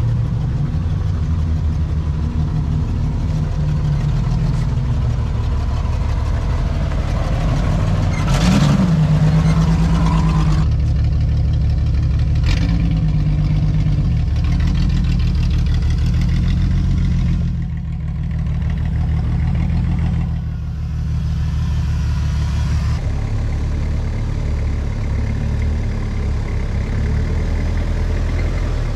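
Four-wheel-drive vehicle's engine running at low revs while it creeps slowly down a muddy slope, with a short rev about eight seconds in.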